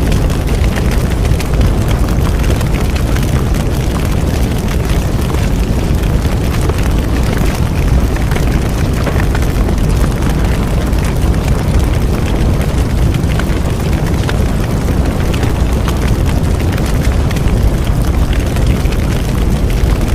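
Bonfire burning: a steady low rumble of flames with frequent sharp crackles and pops from the burning wood.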